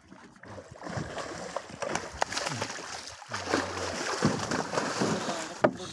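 Water splashing and sloshing at the side of a small boat as a hooked fish is hauled in on a handline, starting about a second in, with a brief lull midway and a sharp knock near the end.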